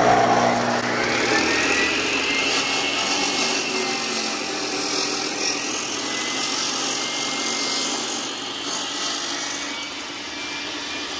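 iQ Power Tools iQMS362 dry-cut masonry saw and its built-in dust vacuum switching on, the blade spinning up with a rising whine over the first second or two, then running steadily while a concrete paver is fed through it dry, without water.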